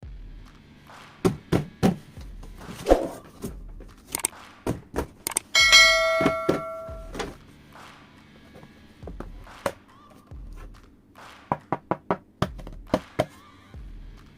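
Plastic toy pieces and packaging being handled: a series of sharp taps, clicks and thunks, with a brief bell-like ring about six seconds in.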